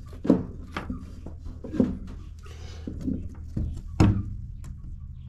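Several irregular dull knocks and thumps of objects being handled and set down in a small room, the loudest about four seconds in, over a low steady hum.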